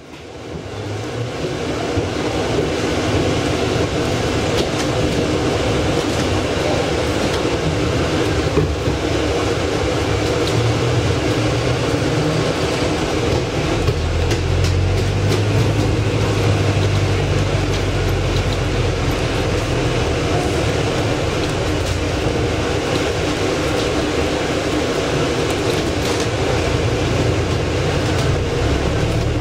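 Volvo B5LH hybrid double-decker bus running, heard from its upper deck as a steady hum that fades in at the start. A deeper drone joins about halfway through.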